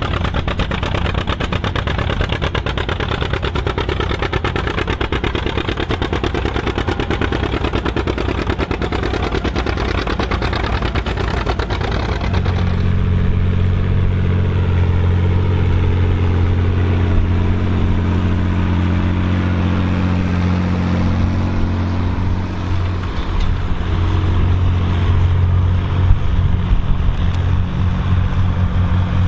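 Big farm tractor engines working under load while plowing: a dense, fast-pulsing engine note for about the first twelve seconds, then a switch to a different, steadier and deeper engine drone.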